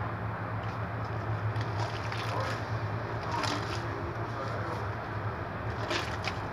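Homemade glue slime being squeezed and kneaded by hand, with scattered small squishes and crackles, a cluster of them near the end, over a steady low hum. The slime is still being worked toward the right stretchy consistency.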